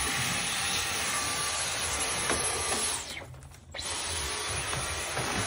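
Dyson cordless stick vacuum running with a brush tool held against a dog's coat. About three seconds in the motor winds down for under a second, then starts again.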